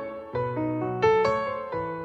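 Background piano music: single notes and chords struck a few at a time, each ringing and fading before the next.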